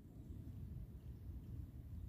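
Faint low rumble on the microphone, with no distinct sound events.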